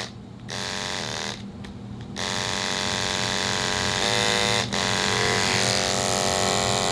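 Two-speed A5 pet-grooming clipper running on low speed with a freshly sharpened, tension-adjusted blade: a steady electric buzz. The buzz drops in level twice in the first two seconds, then runs steady and a little louder.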